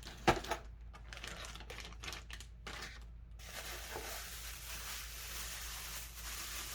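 Small hard objects being handled, with a sharp knock shortly after the start and light clicks and taps for the next few seconds, then a faint steady hiss.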